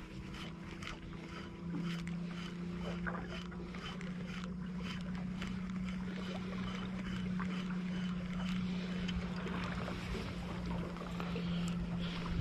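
A small fishing boat's motor running with a steady low hum that steps up slightly in pitch early on, over light water lapping and splashing against the hull as the boat moves slowly along.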